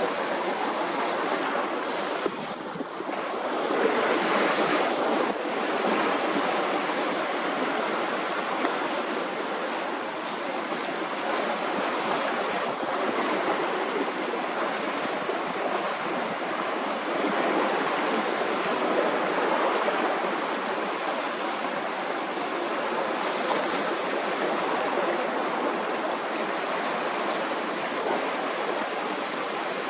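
Sea waves washing on the shore with wind across the microphone: a steady rush that swells and eases.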